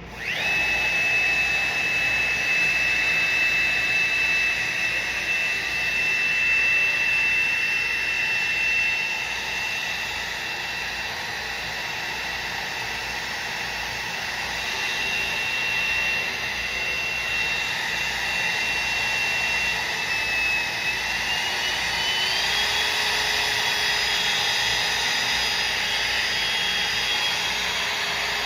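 Wood router switching on and running at full speed with a steady high whine, cutting a juice groove into a wooden cutting board. About twenty seconds in the whine rises in pitch and holds there.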